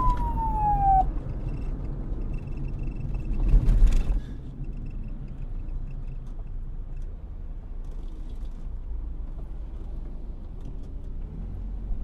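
Police siren wail sliding down in pitch and stopping about a second in. A low steady rumble follows, with a brief louder swell of noise about four seconds in.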